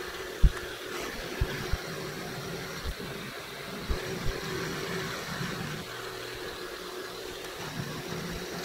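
Milling machine running with an end mill cutting a slot in a metal workpiece: a steady motor and spindle tone under the cutting noise. A few short low thumps are heard, the loudest about half a second in.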